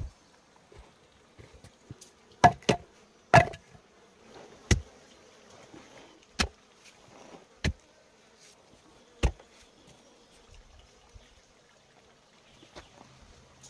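About seven sharp wooden knocks, spaced a second or two apart and loudest in the first few seconds, as stakes and poles are set for a log bench. Insects buzz faintly underneath.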